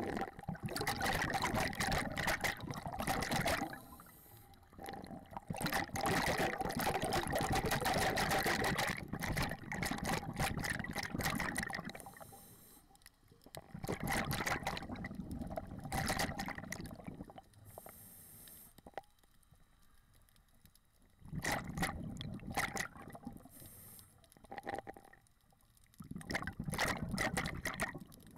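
A scuba diver breathing through a regulator underwater: exhaled bubbles rush out in long bursts every few seconds, with brief high hisses in the quieter gaps between.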